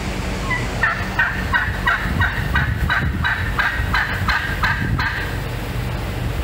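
Wild turkey calling: a run of about fourteen evenly spaced notes, about three a second, that stops about five seconds in.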